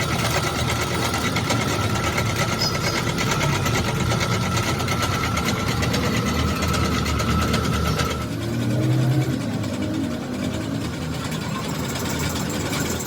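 A machine running with a fast, even rhythmic clatter and a steady whine; the whine and clatter stop about eight seconds in, leaving a lower rumble.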